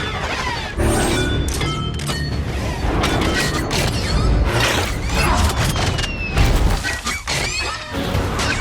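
Robot transformation sound effects: a rapid run of metallic clanks, crashes and booms with whooshing sweeps, over music.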